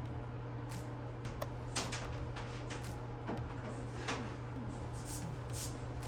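A steady low hum under scattered light clicks, knocks and short scrapes, as of things being handled and set down.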